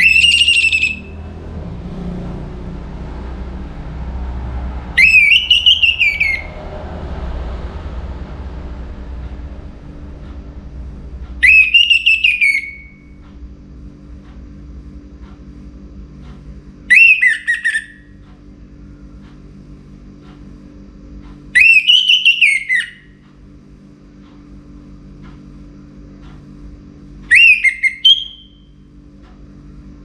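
Orange-headed thrush singing its loud, clear whistled song: six phrases about five seconds apart, each about a second long, rising and then falling in pitch. A low hum and rumble sit under it.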